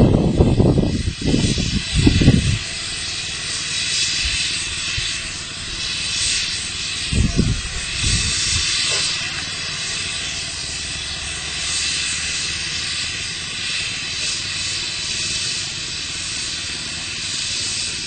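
Steady hiss of escaping steam at a steam whistle rig between whistle blasts. There are low rumbles in the first couple of seconds and two short ones about seven and eight seconds in.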